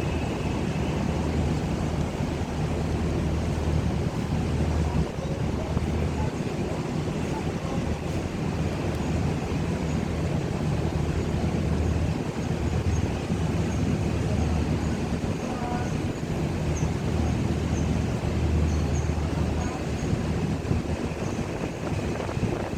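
A ship's engine running with a steady low drone, under a haze of wind and water noise.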